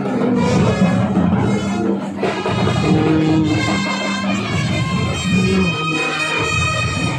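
Street brass band playing live and loud, with sousaphones and other horns holding long notes that change every second or so.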